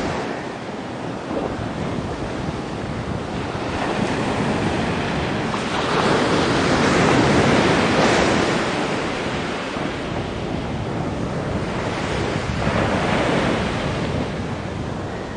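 Ocean waves washing ashore with wind on the microphone; the surf swells loudest about halfway through and again near the end.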